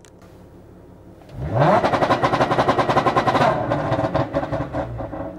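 Audi SQ5's supercharged 3.0 TFSI V6 idles, then is floored in park and revs up quickly about a second in. It then holds against a soft-cut launch-control limiter with a rapid, even stutter, the tuned ECU's catalyst-safe imitation of an ignition-cut two-step. Near the end it dies back down.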